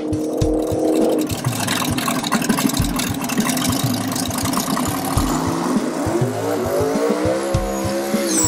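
Dragster's Hemi engine running loud at the strip, its pitch climbing as it revs from about six seconds in. A steady drum beat of background music runs underneath.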